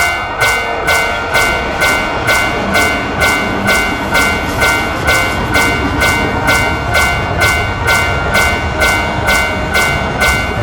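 Japanese railroad crossing warning bell ringing its steady alternating dings, a little over two a second, with a train rumbling past underneath.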